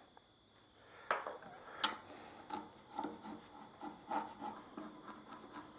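Chisel blade scraping dried glue off the edge of a wooden veneer-hammer head. A run of short, faint scraping strokes begins about a second in.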